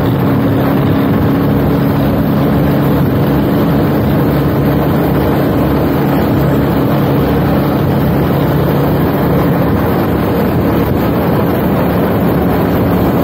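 Motorcycle engine running at a steady speed under a heavy rush of wind on the microphone; the engine's low hum fades in the second half while the wind noise stays.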